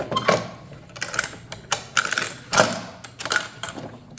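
Irregular run of sharp plastic clicks and clacks from a toy arcade claw machine being handled and operated.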